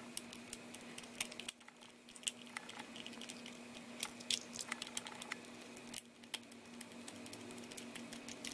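Precision screwdriver backing tiny screws out of a plastic camera body: faint, irregular clicks and ticks from the bit and the hand-held case, over a steady low hum.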